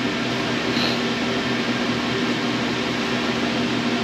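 Steady mechanical hum with a couple of low, steady tones running under it, like an appliance or ventilation unit in the room.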